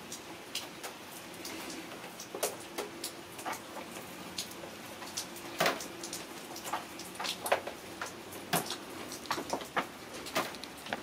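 Irregular light clicks and taps of hand tools and metal parts being handled, over a faint steady hum.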